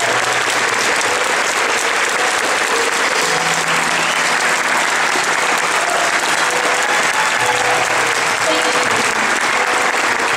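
A large audience applauding steadily, with faint sustained music notes underneath.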